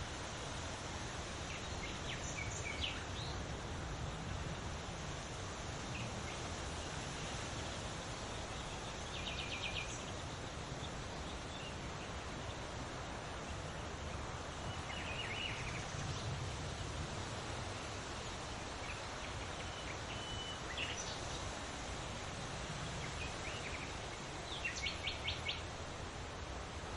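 Wind rustling leaves as a steady hiss, with small birds chirping now and then: short high chirps and trills, including a quick run of notes about ten seconds in and another near the end.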